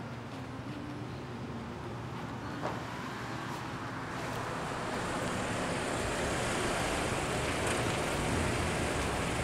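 A Honda CR-V SUV driving up, its tyre and engine noise growing steadily louder from about halfway through as it approaches and pulls in.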